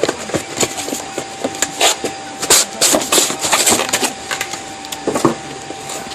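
Knocks, clicks and scraping of a speaker being handled and pulled out of its mounting, the clatter heaviest in the middle.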